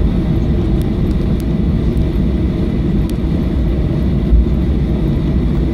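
Steady low rumble inside the cabin of a Boeing 737-700 rolling along the runway after landing, spoilers up, with a few faint light rattles.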